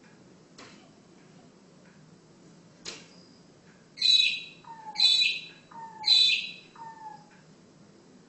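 A bird calling three times, about a second apart, each a harsh high call followed by a lower falling note. A single sharp tap comes about a second before the first call.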